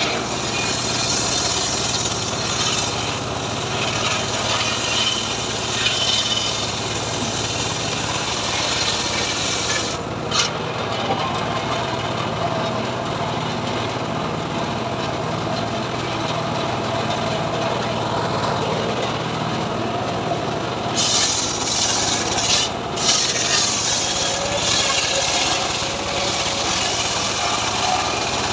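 Homemade circular saw bench ripping lengthwise through a leucaena (lamtoro) log. The blade cuts with a rough, rasping sound over a steady low hum from the machine. The cutting eases briefly about ten seconds in and gets rougher again a little after twenty seconds.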